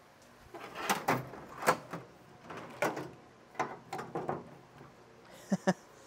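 Rummaging through tools: a string of knocks and clatters over a few seconds, then two sharp clicks near the end.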